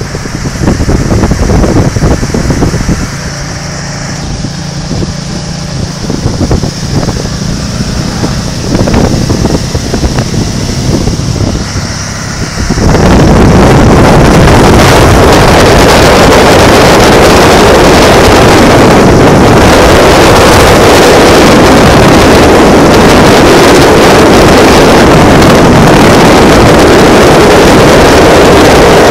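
Can-Am Spyder engine and road noise under gusting wind on the microphone while riding at speed. About 13 seconds in, the wind blast on the microphone jumps to a loud, steady rush that drowns out the engine.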